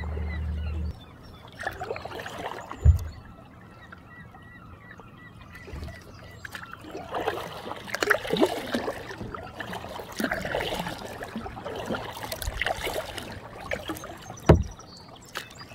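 Kayak paddles dipping and pulling through calm lake water in irregular strokes, with water trickling and dripping off the blades. Two sharp knocks, one about three seconds in and one near the end, stand out above the splashing.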